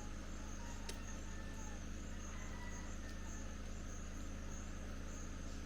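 Insects calling steadily in a high, evenly pulsing chorus, over a low steady hum, with one brief click about a second in.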